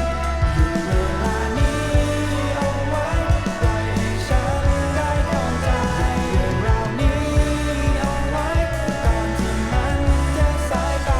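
Rock song with a sung vocal over bass guitar and drums, played back from a vinyl record.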